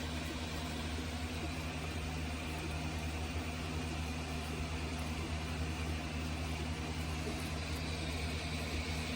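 3D printer running, a steady mechanical hum of its fans and motors.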